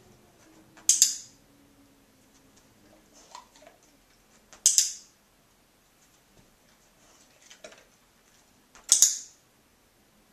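Dog-training clicker clicked three times, about four seconds apart, each a sharp two-part click. Each click marks the dog pressing its right front paw on the floor target.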